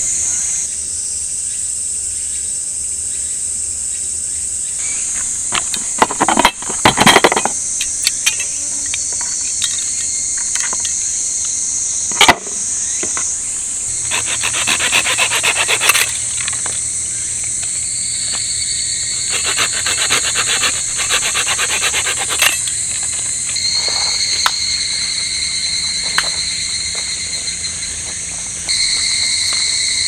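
Steady high-pitched chorus of night insects, such as crickets, with scattered clicks and bursts of crackling. The sharpest clicks come about six to seven seconds in and again at twelve seconds.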